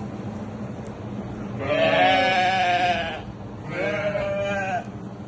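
Sheep bleating twice: a long wavering bleat about two seconds in, then a shorter one near the end.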